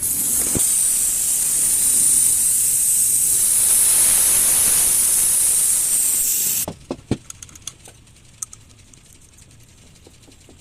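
Compressed gas hissing loudly through a refrigerator's refrigerant tubing as the system is flushed. It cuts off suddenly about two-thirds of the way through and is followed by a few light clicks and knocks.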